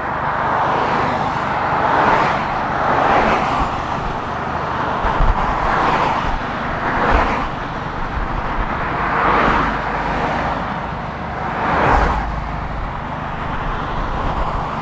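Cars passing one after another on a road, each swelling up and fading over a second or two, about six in all, over the steady low buzzing of an idling car with a loud muffler.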